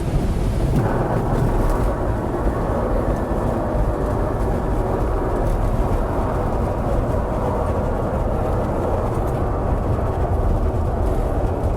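Steady rushing rumble inside a glider's cockpit as the sailplane moves at speed, landing from a ride, getting a little brighter about a second in.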